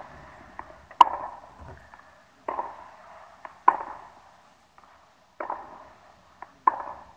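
Tennis ball struck hard by a racket on two-handed backhand topspin groundstrokes: sharp pops about every second and a half, the loudest about a second in, nearly four seconds in and near the end, with lighter impacts in between.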